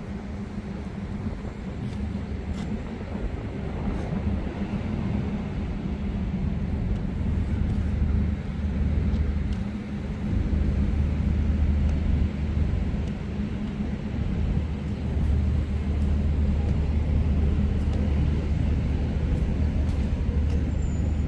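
Steady low rumble of city street ambience with a deep hum, as of traffic, getting a little louder partway through.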